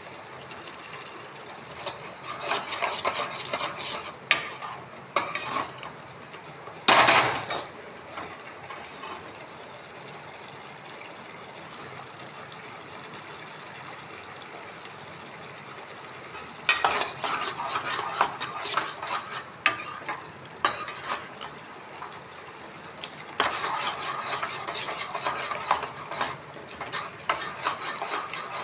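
Spoon stirring and scraping food in a cooking pan, in three spells of rapid clatter, with a single loud knock on the pan about seven seconds in.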